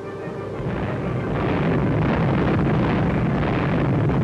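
Film sound effect of aircraft engines running, with the rumble of anti-aircraft fire. It swells over about the first second, then holds as a loud, steady roar.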